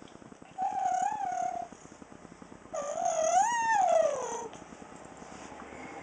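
A dog howling: a short wavering howl about a second long, then a longer one that rises and falls away to a low note.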